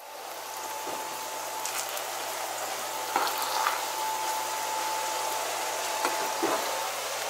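Tofu frying in oil in a pan, a steady sizzle, with a few light clinks of a metal spoon stirring rice in a saucepan.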